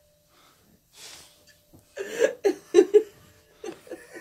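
A person laughing in a run of short bursts about two seconds in, after a breathy intake of breath, with a couple more laughs near the end.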